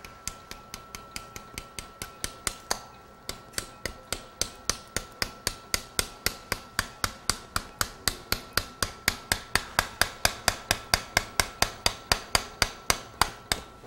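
Small metal mallet tapping the handle of an anchor inserter, driving a knotless suture anchor into the bone of the shoulder socket. The light taps come at an even rate of about four a second and grow louder toward the end. A faint steady high tone runs underneath.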